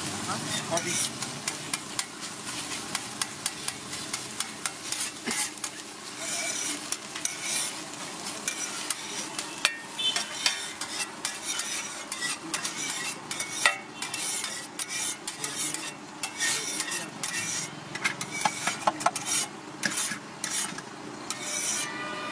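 Metal spatula scraping and clinking against a hot pan as scrambled egg is stirred, with the egg sizzling underneath. The strokes come in quick, irregular clatters, some louder than others.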